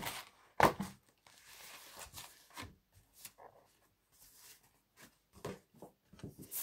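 Paper handling: pages of a test booklet rustling and being turned, with a sharp knock about half a second in and scattered small taps.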